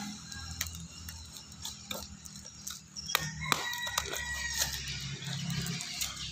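Kitchen knife sawing through a taped cardboard box, with a series of sharp cracks and scrapes as the blade cuts and the cardboard flap is bent back. A rooster crows in the background about halfway through.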